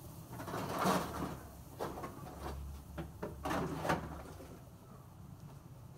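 Wooden spoon scraping around the inside of a pot of caramelizing sugar as it is stirred, in a few uneven strokes. The loudest stroke comes about a second in and another strong one just past the middle.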